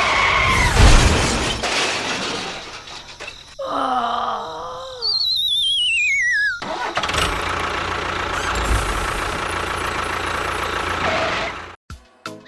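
Engine-like running noise with a low rumble, cut off abruptly in the middle by a wavering pitched sound and a warbling whistle that falls steeply in pitch. The engine noise then returns and stops suddenly near the end.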